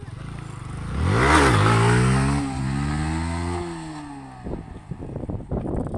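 Motorcycle engine revving hard as the bike pulls away, its pitch climbing, dropping back at each upshift and climbing again, twice. It fades out as the bike rides off.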